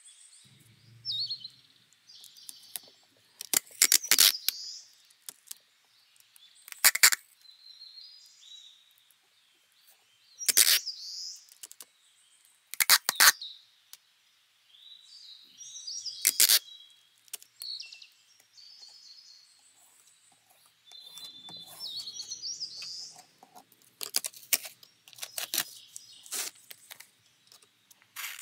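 Clear packing tape pulled off a dispenser roll in loud rips, one every few seconds, with short high squeaks and crinkles of tape and paper between them.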